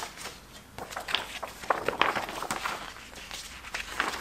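A folded A2 paper poster being opened out by hand, the paper rustling and crinkling in a string of irregular short crackles.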